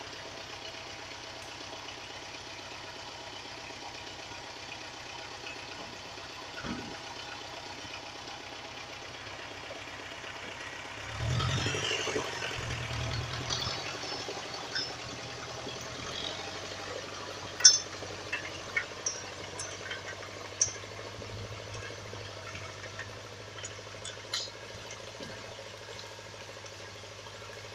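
Wheeled forestry skidder's diesel engine running steadily as it drags a chained bundle of logs, growing louder for a few seconds about eleven seconds in. Scattered sharp knocks and clicks come through in the second half.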